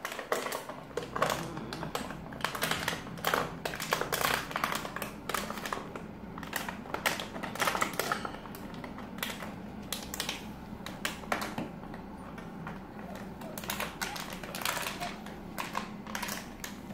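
St Bernard puppies moving about in their pen: irregular clicking and rustling of claws and paws on a laminate floor and puppy pads.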